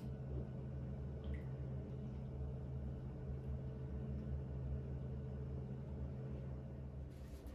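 Steady low hum, which stops shortly before the end.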